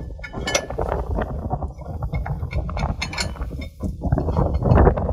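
Irregular metallic clicks, knocks and scraping as the air cart's stainless steel meter roller and drive shaft are handled and worked into place in the meter housing, over a low rumble that is loudest near the end.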